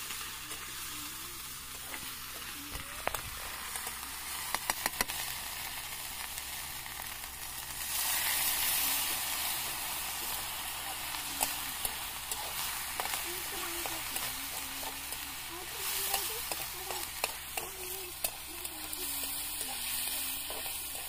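Pork frying and sizzling in a steel kadai while a metal spatula stirs it, clicking and scraping against the pan. The sizzle swells louder about eight seconds in.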